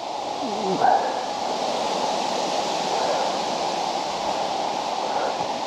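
Steady wind blowing, a continuous rushing noise that builds slightly over the first second.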